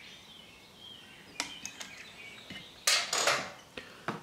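A few sharp metal clicks and knocks from a hand tool tightening the shift rod bolt inside an outboard's lower leg. A louder clatter and scrape comes about three seconds in, as the tool comes away from the bolt.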